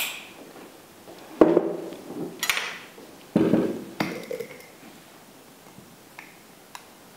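Glass olive-oil bottle and small glass salt jar being set down and opened on a wooden worktop: a few sharp knocks and glassy clinks in the first four seconds, then two faint ticks near the end.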